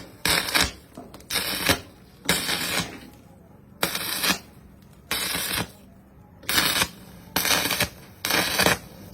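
MIG welder arc crackling in short bursts, about eight half-second tack welds roughly once a second.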